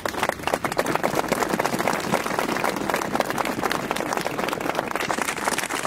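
Crowd applauding: many people clapping at once in a dense, even patter that holds at a steady level.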